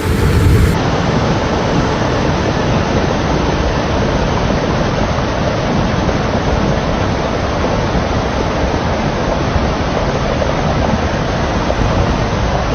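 Loud, steady rushing of water, an even roar with no rhythm or break, after a short low rumble in the first second.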